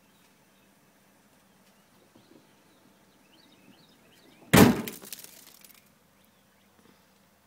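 A sudden loud crash with shattered glass clinking and rattling for about a second after it, in the cabin of a wrecked minivan.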